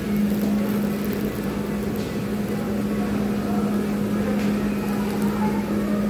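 Steady machine hum with one constant low drone, unchanging throughout, with a few faint clicks over it.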